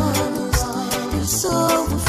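Reggae song: a singer over bass and drums with a steady beat.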